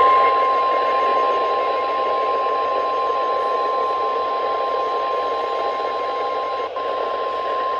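NOAA Weather Radio warning alarm tone: a single steady 1050 Hz tone held unbroken over radio receiver hiss, with a brief dropout near the end. It is the alert that comes before a warning message and switches on alert-ready weather radios, here for a flash flood warning.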